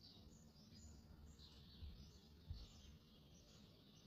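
Near silence with faint, repeated high chirping over a low hum. Two soft low knocks come about two seconds in.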